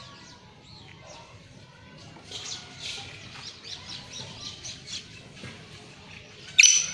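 Grey francolin calling: a run of faint, quick, high chirps from about two seconds in, then a loud, shrill call that starts just before the end.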